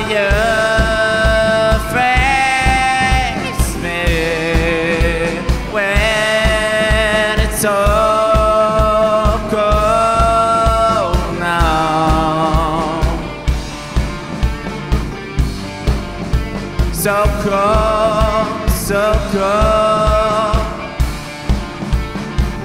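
Live rock band playing: a singer holds long, wavering vocal lines over a steady kick-drum beat with bass and guitars. The voice drops out about halfway through and returns briefly, leaving the drums more to the fore near the end.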